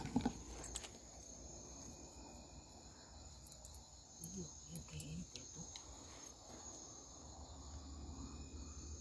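Crickets chirring steadily and faintly at night, a thin high-pitched trill. A few brief murmurs of a low voice come in about four to five seconds in.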